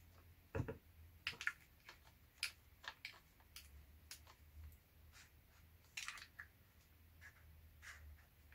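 Faint handling sounds as a DSLR camera is turned and screwed onto the red ball-head mount of an Endeavour SY330 mini tripod: scattered small clicks and light knocks of plastic and metal, with a duller knock about half a second in.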